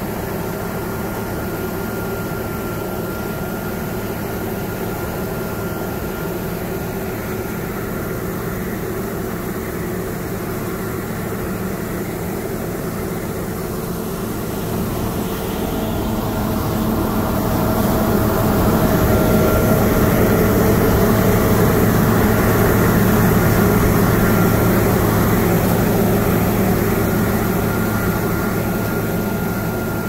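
A John Deere T670i walker combine running under load as it harvests wheat: a steady engine-and-threshing drone with a thin whine over it. It grows louder about halfway through and eases off near the end.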